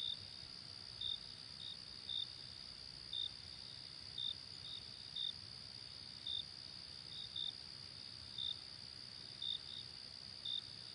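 Night insect chorus: a steady high-pitched trill, with a cricket's short chirps cutting through it at an uneven rate, about one or two a second, sometimes in quick pairs.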